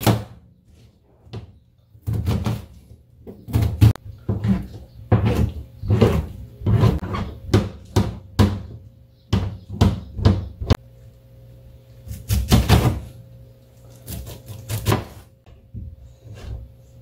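Kitchen knife chopping onion and king oyster mushroom on a plastic cutting board: an irregular run of dull knocks as the blade strikes the board, with a few short pauses.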